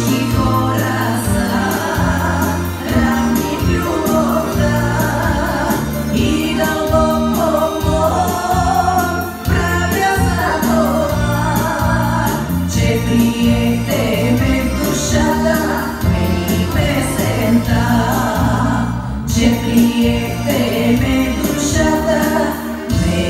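Woman singing a Bulgarian folk song into a microphone over an instrumental accompaniment with a steady beat and a repeating bass line.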